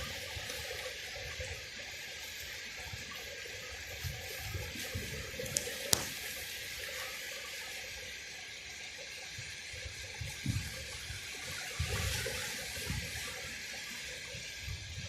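Sea surf washing steadily on the shore, with gusts of wind rumbling on the microphone and a sharp click about six seconds in.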